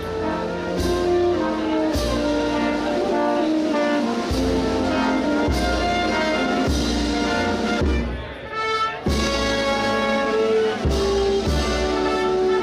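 Brass band playing a Holy Week processional march, the melody in held brass notes over a steady bass drum beat, with a brief break about eight seconds in.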